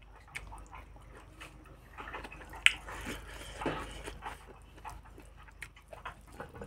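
Fingers mixing rice and curry on a steel plate: soft squishing and small scattered clicks of fingertips and nails on the metal, with one sharp click a little before the middle.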